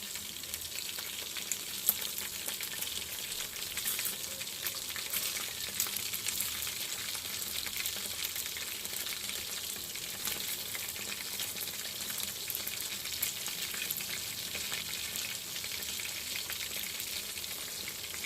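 Chicken wings frying in hot oil in a pan: a steady sizzle with fine crackling spatters, and one sharper crack about two seconds in.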